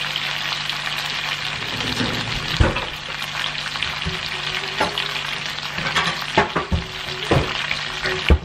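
Beef strips browning in hot oil in a frying pan: a steady sizzle, with sharp pops now and then in the second half.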